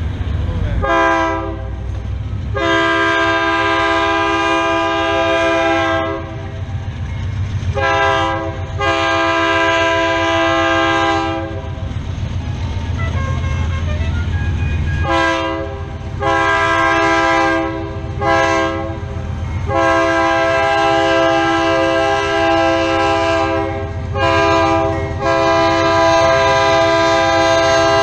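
Air horn of a diesel freight locomotive sounding a series of blasts as the train approaches a crossing, mixing short toots with long blasts of several seconds each. A low rumble runs underneath.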